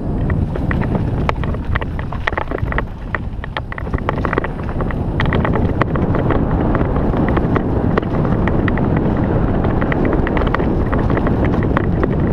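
Mountain bike ridden fast down a rough, dry dirt trail, heard from a helmet-mounted GoPro: wind rushing over the microphone with tyre noise on the dirt and a constant rattle of quick clicks and knocks from the bike, getting a little louder about four seconds in.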